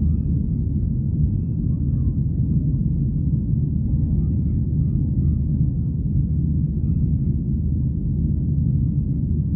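Steady low rumble of a Boeing 737-800's CFM56 jet engines heard inside the passenger cabin.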